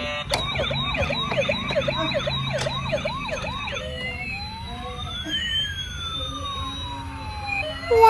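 Toy ambulance's electronic siren: a fast yelp sweeping up and down about two or three times a second, changing a little under four seconds in to a slower wail that rises and falls.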